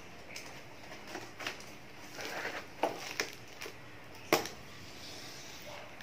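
Box cutter slitting the tape and cardboard of a shipping box, with short scratchy rustles and several sharp clicks and taps as the box is handled; the sharpest click comes a little over four seconds in.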